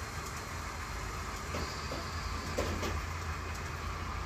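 Model train running along layout track: a steady low rumble of wheels and motor, with a few faint clicks in the middle.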